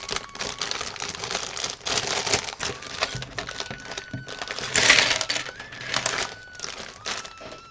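Loose plastic Lego pieces rattling and clicking as they are tipped out and moved around on a plastic tray, with plastic bags crinkling. There is a louder rush of clatter about five seconds in.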